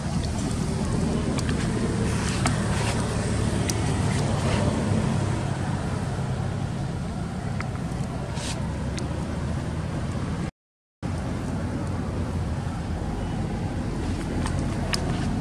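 Steady low outdoor rumble by open water, with a few faint short clicks. The sound cuts out completely for about half a second a little after ten seconds in.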